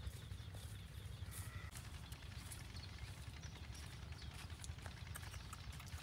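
Footsteps in sandals on a dirt path, scattered soft steps over a steady low rumble.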